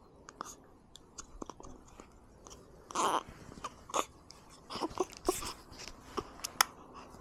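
A baby feeding: irregular soft sucking, smacking and swallowing clicks, with a few short, louder noisy sounds.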